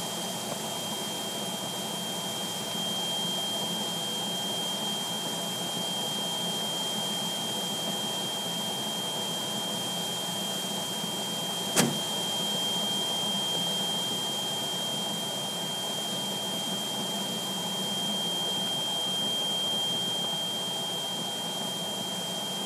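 Steady rush of airflow over the canopy inside a DG-505 glider cockpit in flight, with a thin, steady high-pitched tone throughout. A single sharp click about twelve seconds in.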